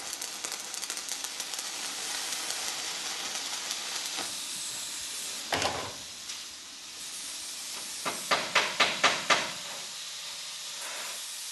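Electric arc welding: a steady crackling hiss from the welding arc for about five and a half seconds. It is followed by a single sharp knock, and later by a quick run of about six sharp knocks.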